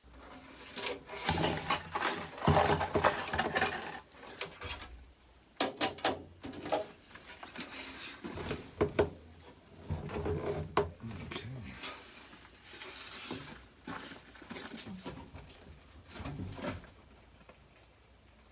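Irregular clicks, clinks and knocks of hand work on metal parts, such as tools and wire lamp guards being handled at the truck's rear lamps, with short rustling scrapes in between.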